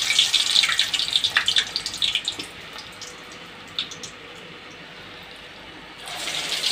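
Hot oil in a steel kadai sizzling and crackling around a freshly dropped medu vada, easing off after a couple of seconds. It flares up again near the end as another vada goes into the oil.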